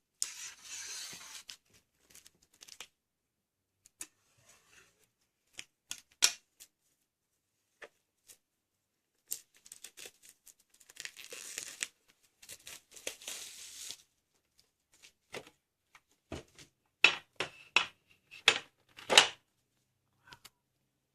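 Wrapping being torn and rustled as a Faber-Castell Polychromos metal pencil tin is opened, in several spells of hissy rustling. Sharp clicks and knocks from the tin and its contents come in between, loudest in a cluster near the end.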